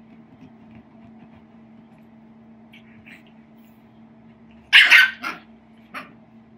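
Small dog giving a short run of three or four sharp, loud barks about two-thirds of the way in, the last one weaker.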